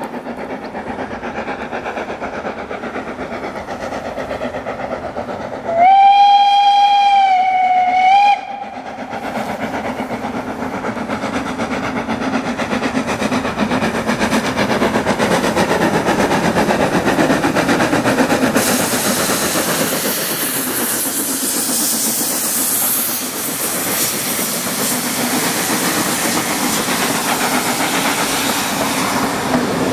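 Steam locomotive whistle blown once, one long note lasting about two and a half seconds, about six seconds in. Then the locomotive and its coaches approach and pass close by, the steam exhaust hiss and rail noise growing much louder from about two-thirds of the way in.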